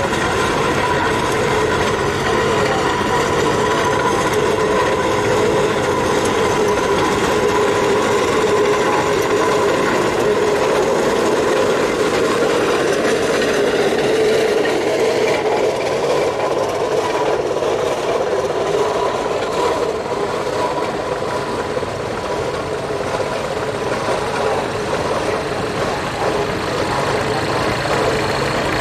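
Vintage machinery engines running as the machines drive slowly past: a steam traction engine at first, then old farm tractors with their engines idling along.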